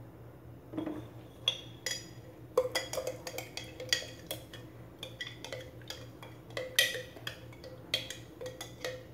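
Metal spoon stirring blended garlic and sesame oil in a glass jar, clinking irregularly against the glass, starting about a second in.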